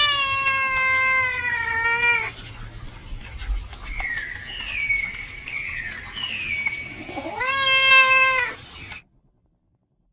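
A cat meowing: a long meow that falls slightly in pitch, a few shorter, higher calls, then a second long meow that rises and holds before cutting off suddenly.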